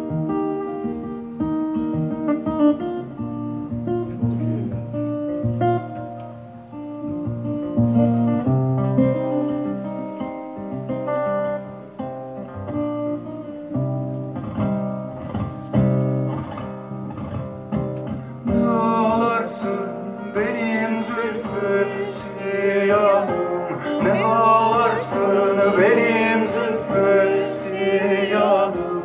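Solo acoustic guitar playing a melody of picked notes, joined about two-thirds of the way in by a man singing with a wavering, ornamented voice.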